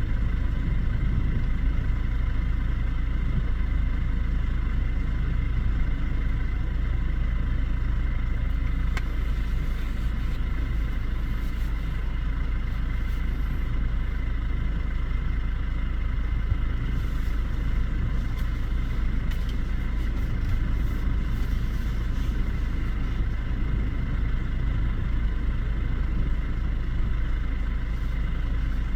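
A vehicle's engine running steadily: a constant low rumble with a faint steady hum over it.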